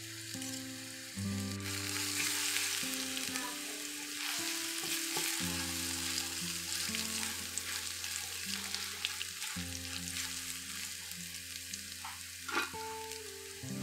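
Ginger-garlic paste and cumin seeds sizzling in hot oil in a cast iron pan as a tadka, stirred with a silicone spatula. The sizzle swells about two seconds in, and there is one sharp knock near the end. Soft background music with sustained notes plays underneath.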